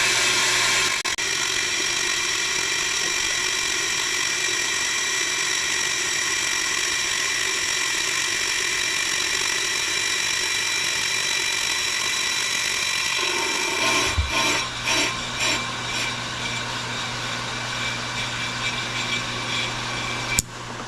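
Pro-Cut on-the-car brake lathe running, spinning the hub and brake rotor while its bits cut both rotor faces on automatic feed: a steady machine whine with several high tones. Around fourteen seconds in there is a low thud followed by a few seconds of uneven rattling, and a sharp click near the end.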